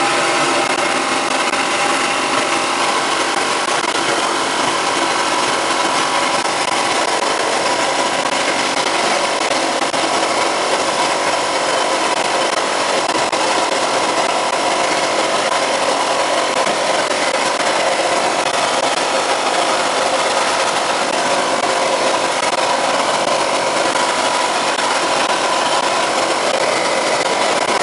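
Wet-blasting cabinet at work: compressed air driving a slurry of water and abrasive media through the nozzle onto a two-stroke motorcycle cylinder head, a steady loud hiss.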